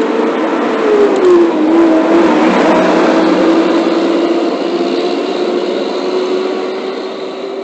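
Heavy trucks' diesel engines running and passing close by on the street, one passing about a second and a half in with a drop in pitch, over a steady engine tone.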